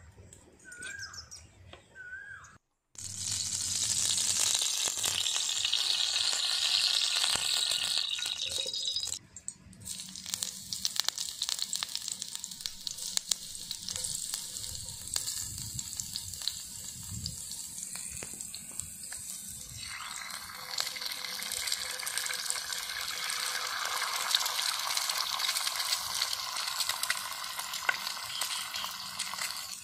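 Hot oil sizzling in a frying pan with green capsicum rings and an egg frying in it. The sizzle starts suddenly a few seconds in, dips briefly about a third of the way through, and swells again about two-thirds of the way through. Birds chirp briefly at the start.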